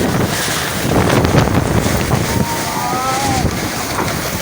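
Heavy storm wind gusting and buffeting the microphone, with a faint wavering high tone about halfway through.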